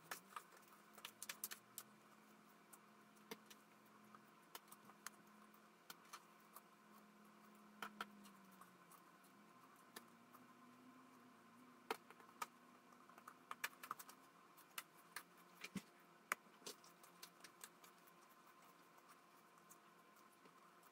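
Faint, scattered little clicks and taps of oiled hands pinching off and rounding soft yeast dough on a kitchen countertop, over a faint steady background hum.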